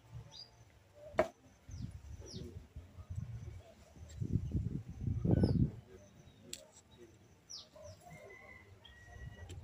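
Birds calling with short, falling chirps and a brief whistle near the end, over low thumps and knocks of close handling, the loudest about five seconds in, and a sharp click about a second in.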